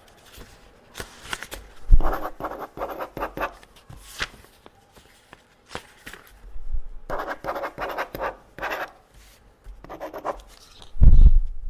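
Pen scratching across paper in quick groups of short strokes, the marks of a teacher grading tests, with scattered light clicks and a dull thump near the end.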